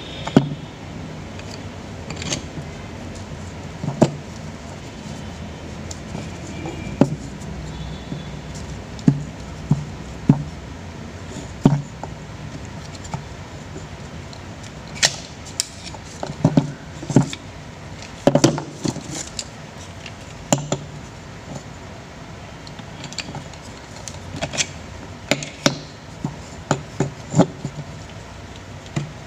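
Irregular clicks and knocks of metal and plastic as a dismantled electric fan motor, with its housing, shaft and capacitor wires, is handled and worked on, over a steady low background noise. The knocks come scattered, more of them in the second half.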